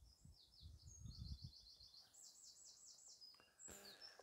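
Faint birdsong from a small songbird: a quick run of repeated high chirps, then a brighter trill of about six falling notes just after two seconds in. Low rumbling gusts at the start and a short rustle near the end.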